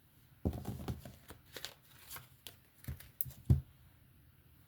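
A deck of cards being shuffled and handled: rustling and quick clicks of cards, with a few knocks on the table, the loudest about three and a half seconds in.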